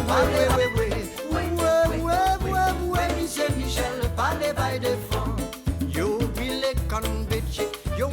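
Upbeat Latin-Caribbean dance music with a strong, regular bass line under a wavering melody.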